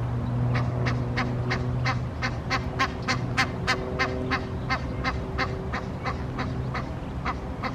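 Egyptian goose calling in a fast run of short, harsh honks, about three a second, starting about half a second in.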